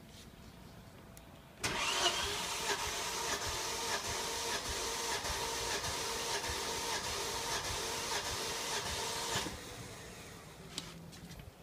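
Car engine turned over on its starter motor for about eight seconds without firing, with a regular pulse, for a wet compression test with motor oil poured into the spark plug hole. It starts abruptly about a second and a half in and stops suddenly near the end.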